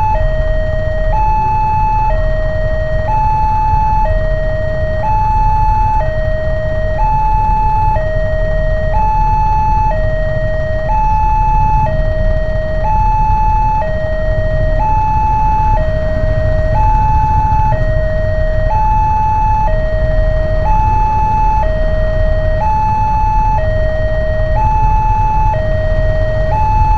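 Electronic level-crossing warning alarm sounding a two-tone hi-lo signal, each tone held about a second and repeating evenly. It warns that a train is approaching the crossing. Under it is the low steady noise of waiting motorcycle traffic.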